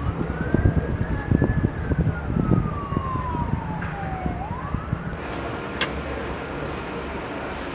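A siren wailing in the distance, its pitch rising, sliding slowly down, then rising again about four seconds in. Low irregular rumbling and knocks sit under it for the first few seconds, and there is a single sharp click near six seconds.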